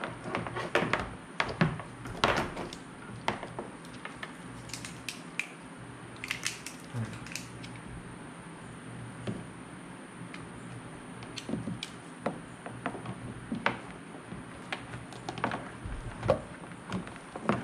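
Irregular clicks, taps and rustles of wires and small plastic parts being handled and tied up by hand, over a steady low hum.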